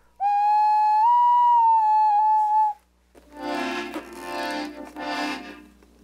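A small ceramic ocarina blown in one held note that steps up slightly about a second in and stops after nearly three seconds. After a brief pause, a small piano accordion plays three short swelling chords.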